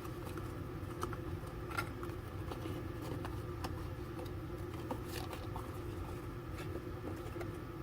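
Faint handling noise from a foam squishy toy being turned over in the hands: scattered soft clicks and rustles over a steady low background hum.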